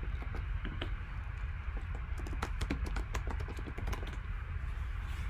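Typing on a computer keyboard: a run of quick keystrokes, thickest in the middle and thinning out near the end, over a low steady hum.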